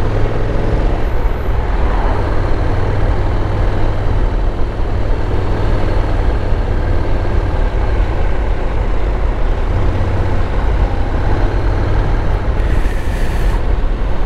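Honda NC750X's parallel-twin engine running at a steady cruise on the road, under an even rush of noise, with a brief hiss a little before the end.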